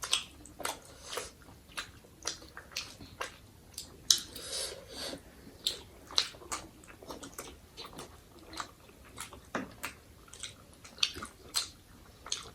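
People eating instant noodles and momo close to the microphone: chewing, with many irregular short clicks and smacks of mouths and utensils, and a longer hissing slurp-like sound about four seconds in.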